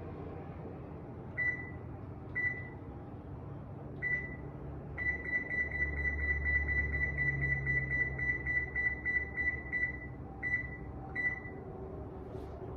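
Electronic oven timer keypad beeping as the time is set. There are three single button-press beeps, then a fast, even run of beeps lasting about five seconds as a button is held down, then two more single beeps. A low hum sits under the fast run.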